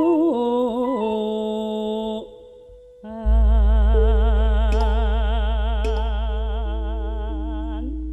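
Javanese sindhen singing a slow, ornamented vocal line with wide vibrato over gamelan accompaniment. After a short dip about two seconds in, a deep low tone enters about three seconds in and slowly fades under a long held sung note, with two light taps in the middle.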